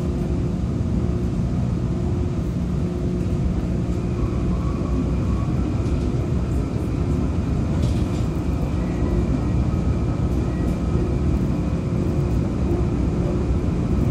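CTA Brown Line rapid-transit train running, heard from inside the car: a steady rumble of wheels on rail, with a faint high, steady whine joining about four seconds in.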